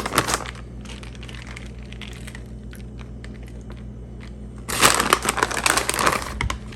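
Plastic bag of shredded cheese crinkling in two bursts as cheese is shaken out of it, with faint scattered clicks between, over a steady low hum.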